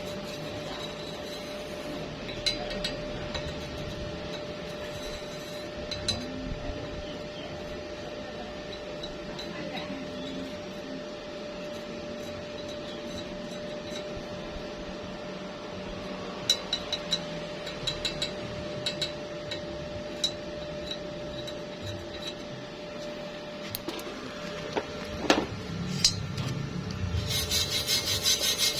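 Workshop tool sounds: a steady hum under scattered metal clicks and taps, with a sharp knock a few seconds before the end. Near the end, rhythmic rasping like sawing or filing metal starts.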